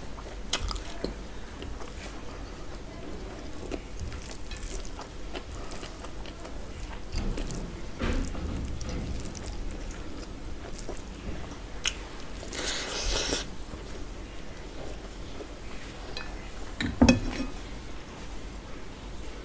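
Hand-eating sounds: fingers squishing and mixing rice with dal on a steel plate, with chewing and scattered small clicks, and a brief louder wet noise about two-thirds through. One sharp knock of dishware near the end.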